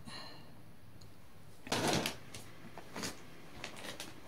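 Handling noises of a phone being moved and set in place: a short scraping rustle about two seconds in, followed by a few light clicks and knocks.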